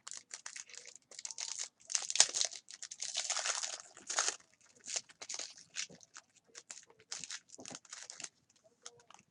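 Trading-card pack wrappers being torn open and crinkled: irregular bursts of crackling, busiest in the middle.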